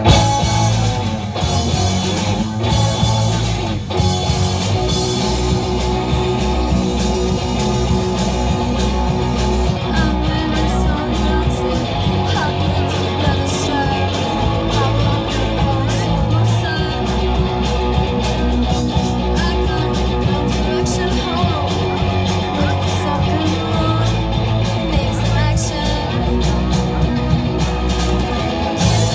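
Live rock band playing: amplified electric guitar, bass guitar and drums.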